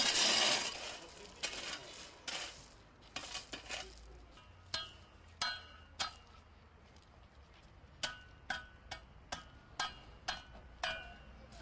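A metal tool striking cold patch asphalt during a pothole repair: a loud scraping rush in the first second, then a string of sharp clanks, each with a brief metallic ring, about one or two a second.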